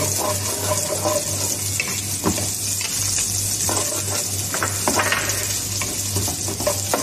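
Chopped onion sizzling in a little hot oil in a pot, stirred with a wooden spoon that scrapes and knocks against the pan again and again over a steady hiss.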